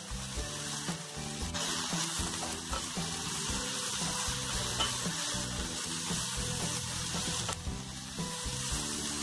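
Chopped onions and green chillies sizzling steadily in hot mustard oil in a kadai, stirred and scraped with a wooden spatula, as the onions are fried toward browning.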